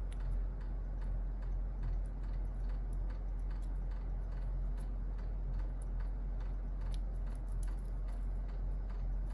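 Light, irregular clicks and ticks of a keycap and mechanical keyboard switch being handled and pressed, over a steady low hum.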